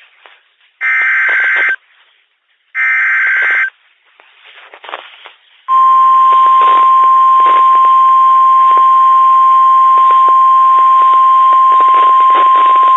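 NOAA Weather Radio Emergency Alert System alert: the last two bursts of the SAME digital header, each about a second long, then about six seconds in the steady 1050 Hz warning alarm tone starts and holds, with radio static underneath. The tone signals that a new warning broadcast is about to follow.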